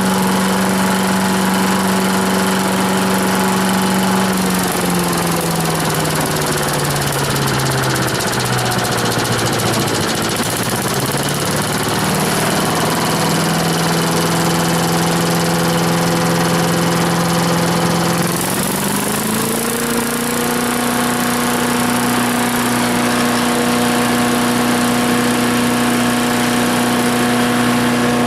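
Troy-Bilt wood chipper's 250 cc Briggs and Stratton engine running on a newly installed carburetor. Its speed drops about four seconds in, partly recovers, then rises to a higher steady speed near the end.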